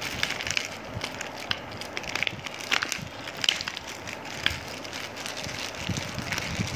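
Plastic wrapping crinkling and crackling in irregular sharp bursts as a bicycle headlight's blister pack is pulled out of its torn wrapper.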